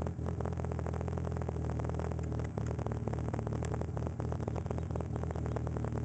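Car engine idling with a rapid, even ticking, heard from underneath the car. The engine is running sluggishly after the car stood unused over the winter.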